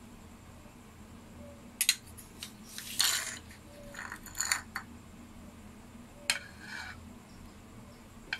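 Metal spoon clinking and scraping as butter is scooped out for a cake batter: several short, sharp clinks and scrapes.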